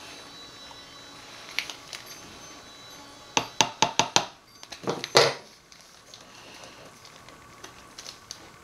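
Spoon and container handling while adding silk protein powder to the oil: a quick run of about five light taps or clicks, then a short, louder scrape about a second later.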